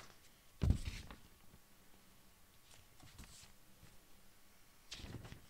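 Paper textbook being leafed through: a dull thump with paper rustling about half a second in as the pages are turned and the book settles on the desk, then a few faint paper rustles.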